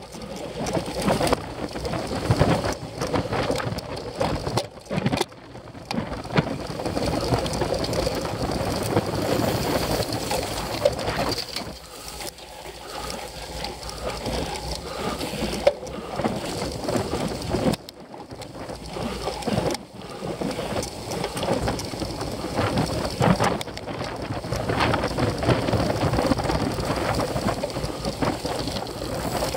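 Cyclocross bike ridden over bumpy grass and dirt, with an on-bike camera's microphone picking up an uneven rumble, rattling knocks from the bike and wind buffeting.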